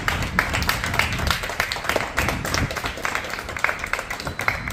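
A small group of people clapping their hands, a fast, uneven patter of claps.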